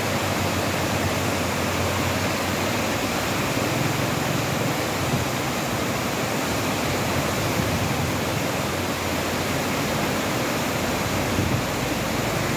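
Muddy floodwater from a wadi in spate after thunderstorms, rushing and churning down a concrete-lined channel: a steady, loud, even rush.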